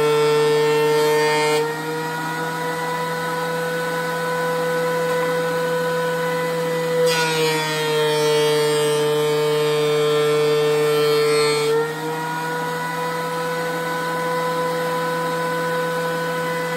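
DeWalt benchtop thickness planer running with a steady high whine. Boards pass through it twice: in the first second and a half, and again from about seven to twelve seconds in. Each pass adds a louder, harsh cutting noise and pulls the motor's pitch slightly lower under load.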